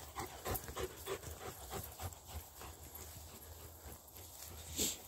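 Shepherd dog panting quickly, in short rapid breaths that grow fainter after a couple of seconds. One short, sharp noise near the end is the loudest sound.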